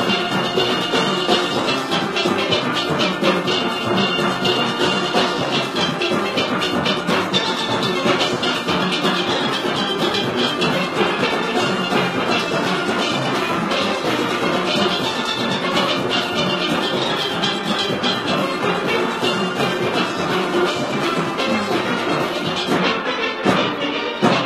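A full steel orchestra playing: many steelpans, from high tenors down to bass drums, struck together in a dense, continuous arrangement with a percussion section keeping the beat.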